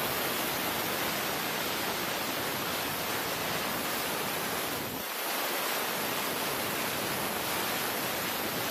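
Steady, even rushing hiss with no clear engine note, dipping briefly about five seconds in.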